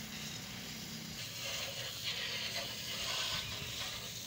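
Water spraying from a hose wand onto a motorcycle being washed, a hiss that grows louder about a second in, over a steady low machine hum.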